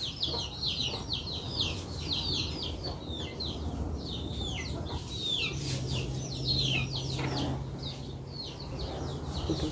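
Chicks peeping: many short, high chirps that fall in pitch, repeated rapidly throughout. A low steady hum joins in from about the middle to near the end.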